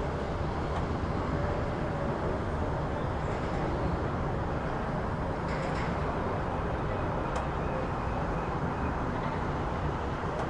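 City street ambience: a steady rumble of road traffic, with a couple of faint short clicks about halfway through.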